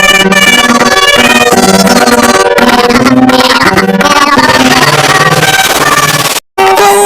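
Loud, busy instrumental music with many stacked notes, which breaks off for a split second about six and a half seconds in and then starts again.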